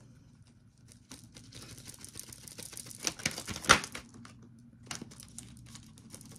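Tarot cards being shuffled and handled: a quick run of soft papery clicks and rustles starting about a second in, with one sharper snap a little before four seconds in.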